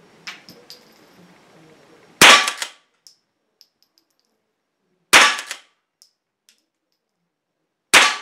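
Remington 572 Fieldmaster .22 pump rifle firing standard-velocity .22s in a basement range: three shots about three seconds apart, each with a short ring of room echo. Faint clicks come between the shots.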